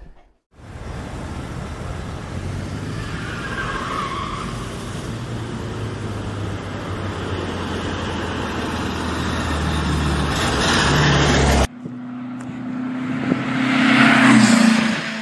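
Classic air-cooled VW Beetle engine running as the car drives, steady and growing slowly louder, then cut off abruptly about twelve seconds in. A different engine note follows, swelling to a peak near the end and then easing off.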